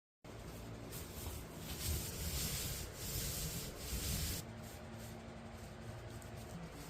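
Paint being spread onto plywood sheets: repeated rubbing strokes of the applicator across the wood, louder for the first four seconds or so and softer after.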